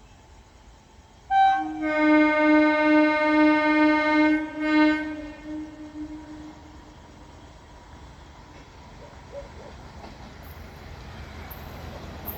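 MEMU electric passenger train's horn giving one long blast, starting about a second in and lasting about three and a half seconds, then trailing off. Afterwards the low rumble of the approaching train slowly grows louder.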